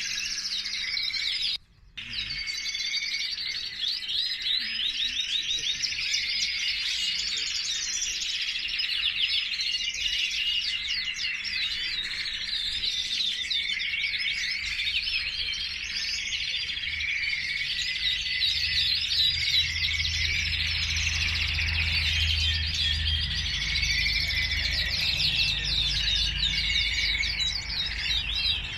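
Many caged canaries singing at once, a dense unbroken chorus of rapid trills and chirps. The sound cuts out for a moment about two seconds in, and a low rumble joins in about two-thirds of the way through.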